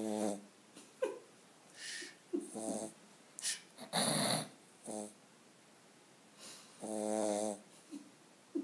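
A pug snoring while awake: an irregular string of short snoring and snorting breaths, some with a buzzing pitch and some noisy and breathy, the longest coming near the end.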